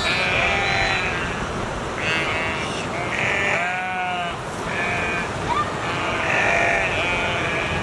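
A herd of sheep bleating, many overlapping calls following one after another.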